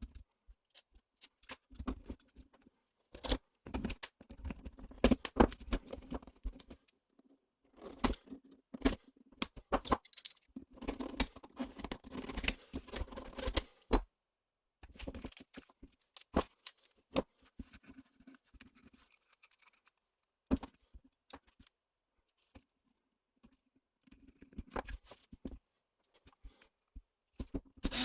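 Small hand tools and plastic and metal parts of an RC truck's rear differential and bulkhead being handled: irregular clicks, taps and rattles with brief scraping, in clusters separated by short pauses.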